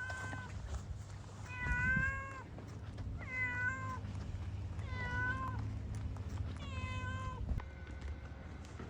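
A cat meowing repeatedly: a short meow at the start, then four drawn-out meows about a second and a half apart. A low steady rumble runs underneath and stops near the end.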